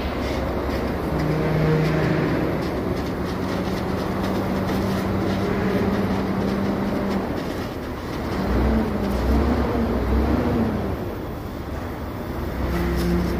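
Gas torch flame hissing steadily while it heats an aluminium radiator for welding with a filler rod. A low pitched hum runs in the background and wavers up and down for a few seconds past the middle.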